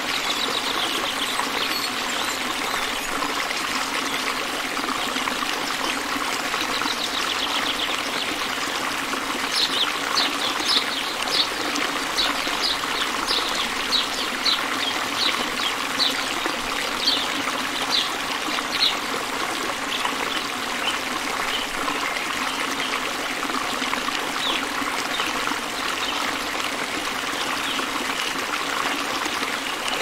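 Steady trickling, flowing stream water, with a run of short high chirps, a few a second, through the middle.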